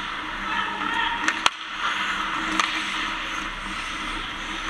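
Ice hockey skates scraping and carving on the ice, with a few sharp clacks of sticks and puck, the loudest about a second and a half in.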